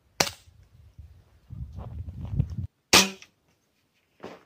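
Two sharp shots from a small pellet gun, about three seconds apart, with a low rumble between them.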